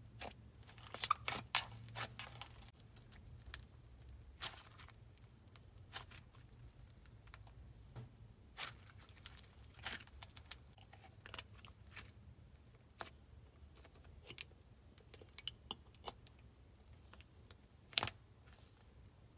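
Soft, sizzly butter slime made with Daiso clay being stretched and squished by hand, giving faint, irregular little pops and crackles.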